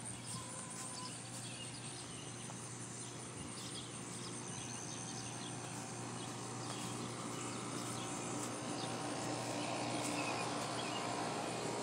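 Outdoor ambience of birds chirping and insects, many short high chirps over a steady background hiss that grows a little louder near the end.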